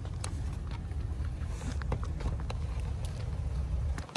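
Steady low rumble of a car heard from inside the cabin, with scattered light clicks and taps; the rumble cuts off abruptly just before the end.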